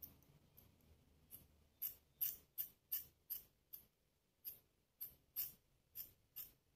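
Scissors snipping rings off the rubber drainage port of a Foley catheter: a run of short, sharp snips, about two a second.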